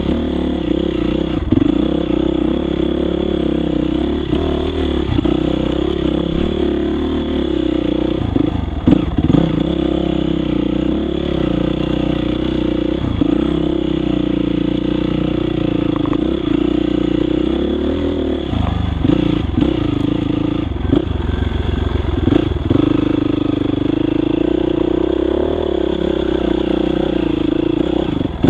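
Yamaha YZ dirt bike engine running under way on a trail, its revs rising and falling with the throttle. They drop off briefly about nine seconds in and again around twenty seconds. Scattered knocks and clatter come from the bike over rough ground.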